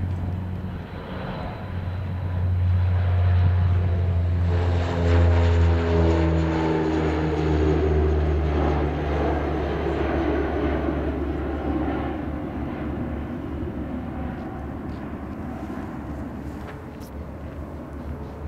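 De Havilland Canada DHC-8-102 Dash 8 turboprop taking off at full power: a deep propeller drone with a high turbine whine. It swells to its loudest a few seconds in, drops in pitch as it passes, then fades as it climbs away.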